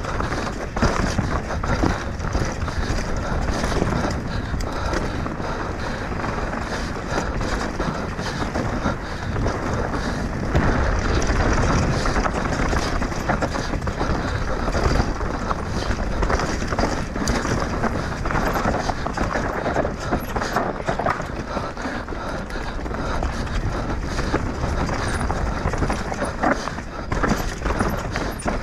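Mountain bike descending a rough trail at speed: tyres rolling over rocks and gravel, with constant rattling and clattering from the bike.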